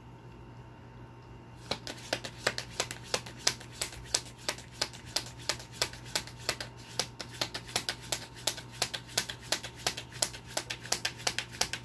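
A tarot deck being shuffled by hand: a fast, irregular run of sharp card-on-card clicks, several a second, starting about two seconds in.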